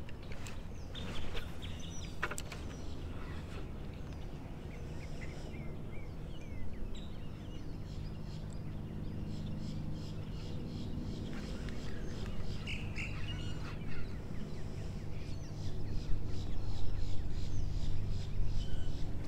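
Small birds chirping in short scattered calls over a steady low rumble that grows a little louder in the second half.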